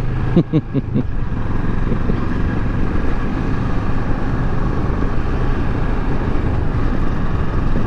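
Kawasaki Versys 650 motorcycle's parallel-twin engine running steadily as the bike rides along a street, mixed with wind and road noise on the bike-mounted camera microphone.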